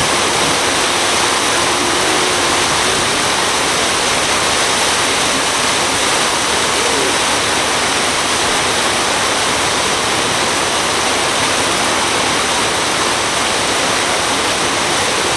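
Steady, even rush of water along the hull and wake of a moving lake cruise boat, with no letup.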